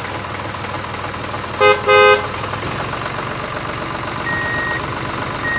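A tractor engine runs steadily with a low rumble. Two short horn honks come about a second and a half to two seconds in.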